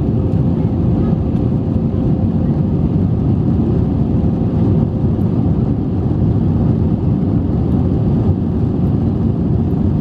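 Steady low cabin noise of an Airbus A320 in the climb after takeoff: jet engines and airflow heard from inside the passenger cabin, with a faint steady hum.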